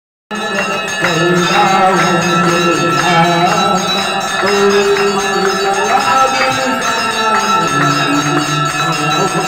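Large hanging metal temple bells rung over and over by hand, ringing steadily over a crowd's devotional singing.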